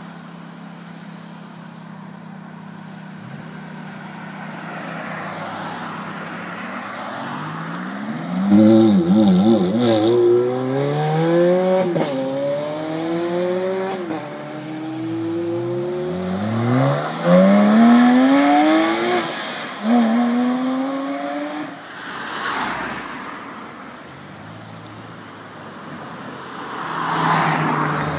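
Ferrari F430 Spider's V8 accelerating hard away from a standstill: after a few seconds of low running, the engine note climbs in a series of rising sweeps, each broken by an upshift, then fades into the distance. Another car's engine swells near the end.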